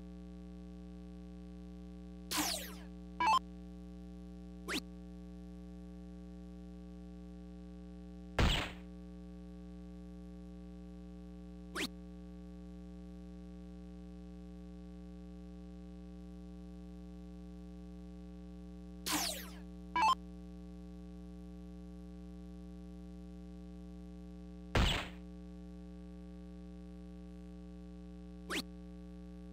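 Electronic dart machine sound effects: short zaps, several sweeping down in pitch, as darts register on the board, in two groups about 17 seconds apart, over a steady electrical hum.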